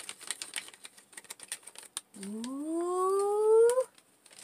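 Plastic crinkling and rustling as an MRE food pouch is pulled out of its flameless ration heater sleeve. About two seconds in, a loud squeal rises steadily in pitch for under two seconds, then stops abruptly.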